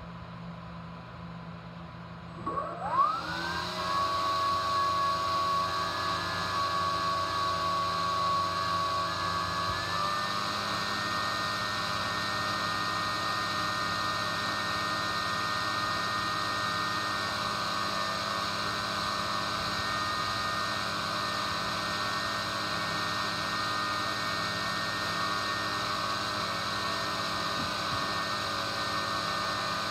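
Dynamax electric ducted fan, driven by a TP-5870 530kv brushless motor, spins up with a quick rising whine about two and a half seconds in. It then runs steadily with a whine and a rush of air, and the pitch steps up slightly about ten seconds in. This is a low-throttle cool-down run after a full-power test.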